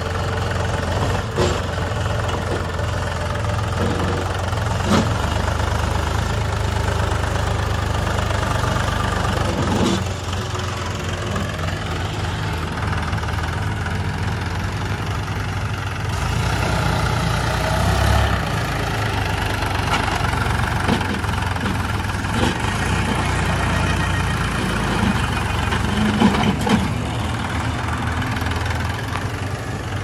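Sonalika DI 42 RX tractor's diesel engine running steadily at low speed while it pulls a trolley loaded with mud, with a few short knocks scattered through.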